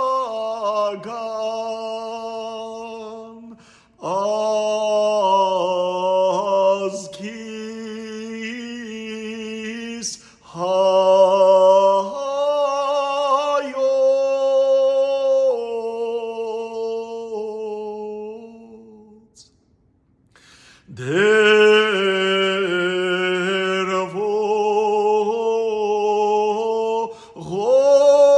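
A single male voice chanting an unaccompanied Armenian church hymn, holding long notes in phrases with short breaths between, and a brief pause about two-thirds of the way through.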